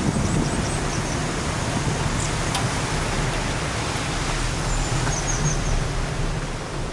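Steady rushing wind and road noise from a moving vehicle, with a low hum underneath, easing off slightly near the end. A few faint high chirps come near the start and again about five seconds in.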